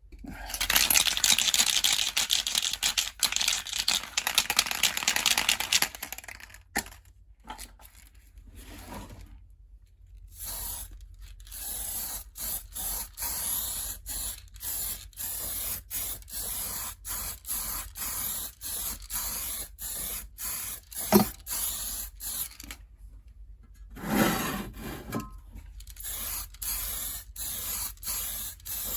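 Spray paint being sprayed from a can: one long hiss for about five seconds, then, after a pause, a long run of short spurts about two a second as a coat goes on.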